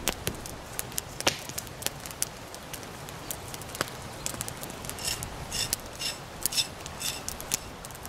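Large knife blade shaving bark off a green sapling, a run of short scraping strokes about two-thirds of the way through, over the sharp crackle and pops of a wood campfire.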